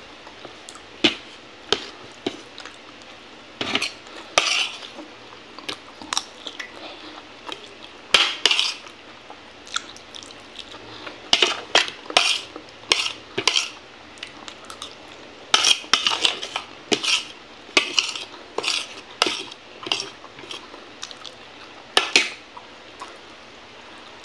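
Metal spoon clinking and scraping against a plate in irregular short strokes while food is scooped up.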